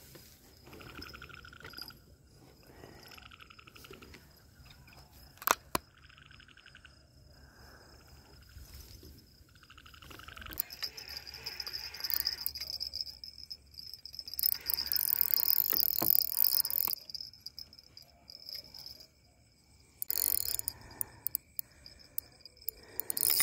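Night insects and frogs calling in short trills repeated every second or so, over a steady high insect whine. From about halfway through, loud rustling handling noise close to the microphone with scattered sharp clicks, as the rod and spinning reel are worked.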